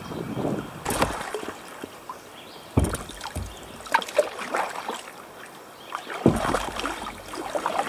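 Paddle strokes splashing and water sloshing against the plastic hull of a Wilderness Systems Tsunami 145 sea kayak, with a few sharp knocks and two deeper thumps, about three seconds in and again near the end.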